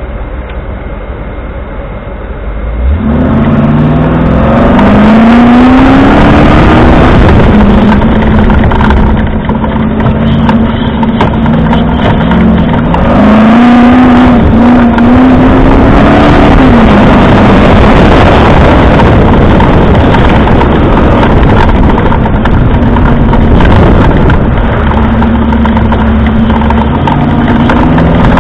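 Comp safari car's engine, a Land Rover-based off-road racer, heard from inside the cab while it is driven hard. Its pitch rises and falls as it revs and changes gear, over a loud, constant rush of noise. It gets much louder about three seconds in.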